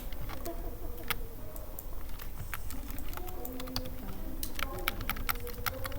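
Typing on a computer keyboard: irregular key clicks, sparse at first, then coming in quicker runs in the last part.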